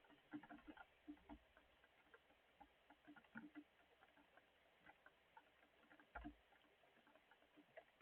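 Faint rain: scattered, irregular drops ticking and pattering over a light hiss, with a soft low thump about six seconds in.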